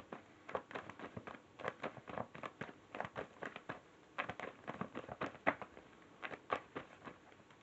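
Tarot cards being handled: faint, irregular clicks and flicks of the cards, several a second.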